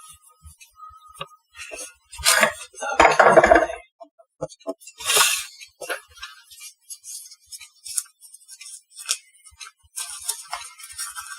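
Handling noises of kitchen items on a work table: scattered small clicks and knocks, light clinks, and a few short rustling bursts, the loudest a little after two and three seconds in and again about five seconds in.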